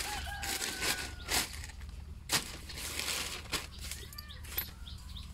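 A few scattered sharp clicks and knocks, and a chicken clucking briefly about four seconds in.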